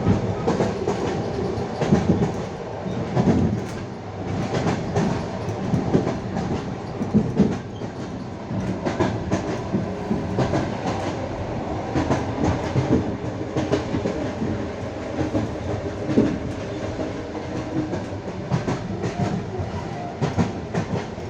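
Passenger train coach wheels running over rail joints at speed: repeated clickety-clack strikes, heard from inside the carriage, over a steady rolling rumble.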